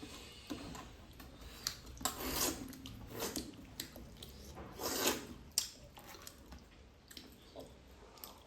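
Eating noises at a meal: short rubbing and scraping sounds of food being worked on a plate, with chewing and a few sharp clicks of something against the plate.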